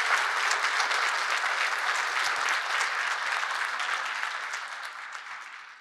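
A large audience applauding steadily, the sound fading out over the last two seconds.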